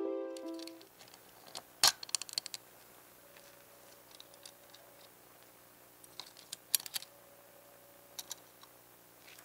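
Piano music fades out in the first second. Then steel tweezers click and tap against the plastic interior of a diecast Ferrari 360 Spider model car as the seats are pried out: a sharp click about two seconds in followed by quick taps, with more short clusters of clicks later.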